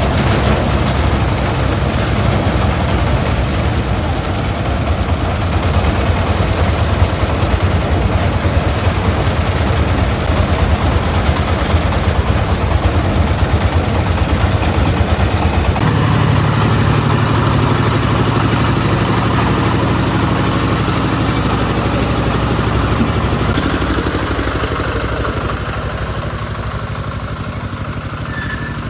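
An engine running steadily. Its sound shifts about halfway through, and it fades gradually near the end.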